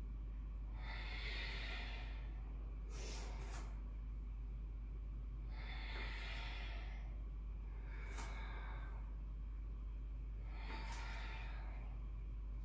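A woman breathing hard in time with lunge repetitions: four long breaths a few seconds apart, paced to the movement (in to centre, out into the lunge). A few short clicks fall between the breaths, over a steady low hum.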